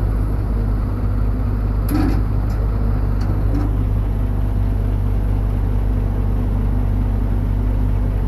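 Heavy engine of a truck or excavator running steadily, a constant low rumble with a steady hum above it, and a few light clicks about two to three and a half seconds in.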